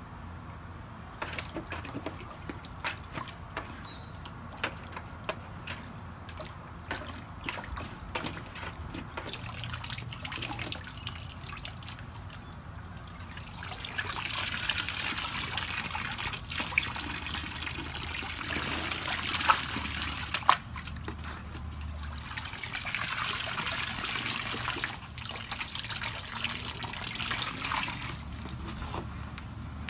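A husky lapping and dripping water in a plastic kiddie pool, with scattered small splashes and drips. About a third of the way in, water begins pouring from a tipped tub into the pool in a steady stream, with a short break near 25 seconds.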